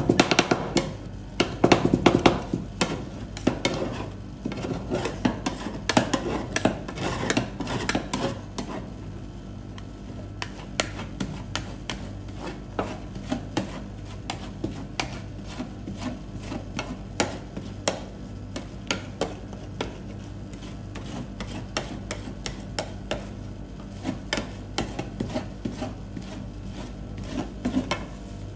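Metal spatulas chopping and scraping ice cream mixed with cookie crumbs on a stainless-steel cold plate. Sharp clicks of the blades striking the steel come fast and loud in the first several seconds, then sparser scraping strokes as the mix is spread into a thin sheet. A steady low hum runs underneath.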